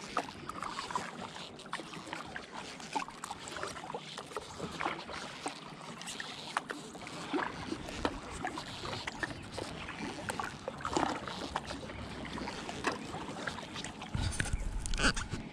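Kayak paddle strokes: the blades dipping into and pulling through calm river water, with irregular splashes and drips. A low rumble comes in near the end.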